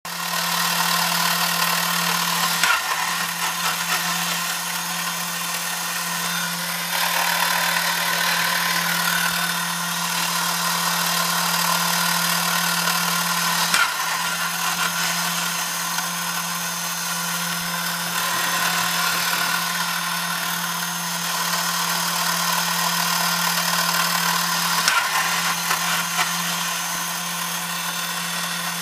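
Battery-powered 1960s Cragston Playboy tin toy's electric motor and gear train running steadily with a whirring hum. Three brief clicks come about eleven seconds apart.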